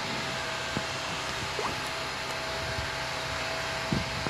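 Steady fan-like rushing noise with a faint constant hum, and a soft knock about four seconds in.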